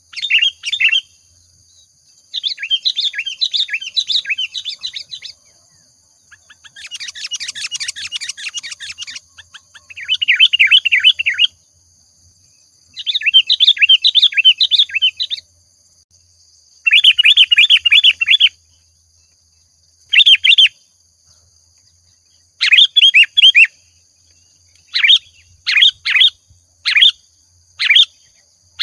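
Sooty-headed bulbul (kutilang) singing in a lively, continuous stream: a repeated run of fast, chattering phrases of one to three seconds each, with short pauses between, breaking near the end into a string of short separate notes. Faint steady high tones run behind the song.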